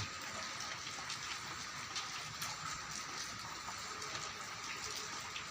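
Rain falling steadily, an even hiss with scattered small drop ticks.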